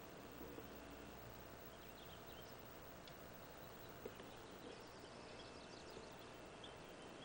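Faint bird chirps over a steady hiss, with a quick run of chirps about five seconds in and a single soft click about four seconds in.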